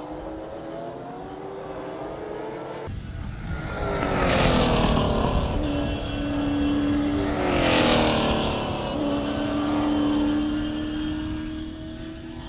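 V8 Supercars race cars at speed on the circuit, two of them passing close by loudly about four and a half and eight seconds in, their engine note sweeping down in pitch as each goes past.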